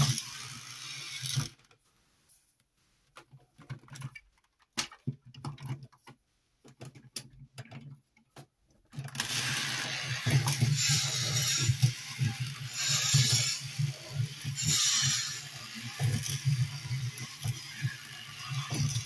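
Motorized Zoids Iron Kong toy walking: its small motor and plastic gearbox run with a steady low hum and dense clicking, with a louder gear rattle about every two seconds as each stride turns over. For several seconds after the start the motor stops, leaving only a few faint clicks, then it starts again.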